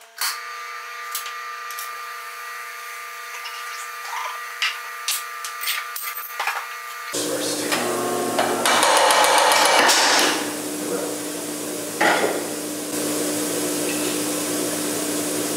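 An open-back inclinable crank punch press being switched on: its motor starts about seven seconds in and settles into a steady hum, with a loud rush lasting about a second and a single knock partway through. Before that come a few light clicks of metal being handled.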